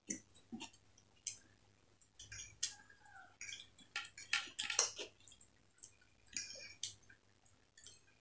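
Two people eating noodles: irregular chewing and mouth noises, with light clicks of a fork against a plastic plate.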